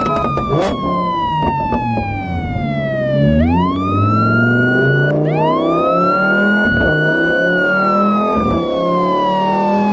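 A siren winds up quickly and then falls away slowly, twice, over an engine revving up in steps.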